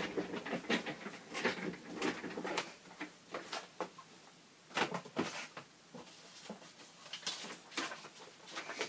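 Irregular rustling and light knocking of papers and craft supplies being sorted through by hand while looking for a scrap of paper, quieter for a moment around the middle.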